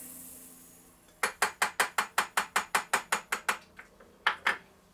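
A small ratcheting mechanism being worked by hand: a fast, even run of sharp clicks, about seven a second, then a short pause and two more clicks near the end.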